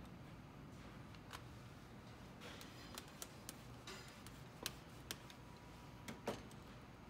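Faint, scattered clicks and taps from a hand tool and metal parts being handled inside a copier's open front, about a dozen spread irregularly, the loudest near the end.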